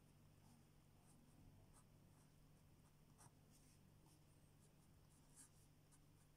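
Faint scratching of a metal pen writing on paper in short strokes, with a few sharper ticks, over a low steady hum.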